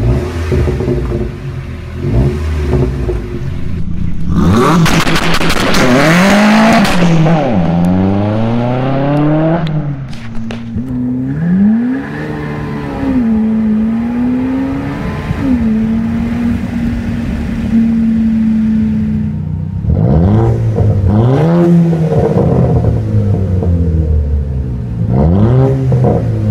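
Audi TT Mk2 (8J) engine and exhaust, heard in several separate recordings. First it is revved at a standstill from behind the tailpipes. Then it accelerates hard from inside the cabin, the pitch climbing and dropping back at each gearshift. Last, with the muffler deleted, it is blipped in short revs in an underground car park.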